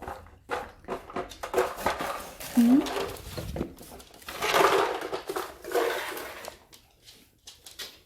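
Homemade plastic food-dispensing toy with food inside, rattling, clattering and scraping on the floor as a dog paws and rolls it. One short rising squeak comes about two and a half seconds in.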